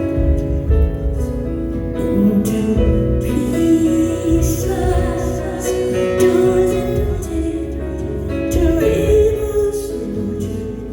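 Live concert music: a woman singing over sustained instrumental accompaniment, as heard in an audience recording.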